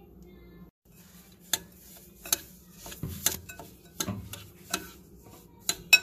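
A metal spoon stirring a crumbly semolina, ghee, sugar and almond mixture in a glass bowl, scraping through the grains and clinking sharply against the glass about seven times.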